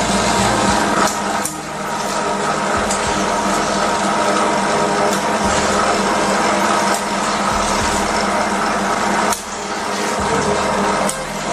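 Hydradermabrasion facial machine's suction pump running steadily, drawing serum and water through the dermabrasion pen's tip with a wet sucking hiss; the sound briefly drops and changes about one and a half seconds in and again near the end.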